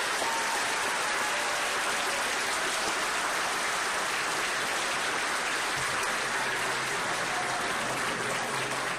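Auditorium audience applauding: many hands clapping in a dense, steady patter.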